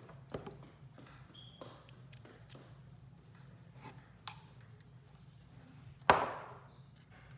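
A screwdriver and small speaker parts handled on a table: scattered light clicks and taps, and about six seconds in one loud metallic clank that rings and fades over about a second.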